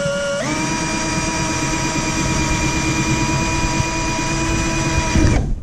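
Electric drill running steadily while drilling a mounting hole for a rivet nut in the car's front fascia. Its whine drops in pitch about half a second in, holds, then stops abruptly just before the end.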